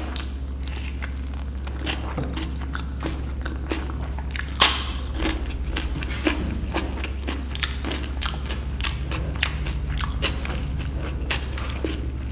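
Close-miked eating: wet chewing and mouth clicks over dal and rice, with one loud, sharp crunchy bite about four and a half seconds in. A steady low hum sits underneath.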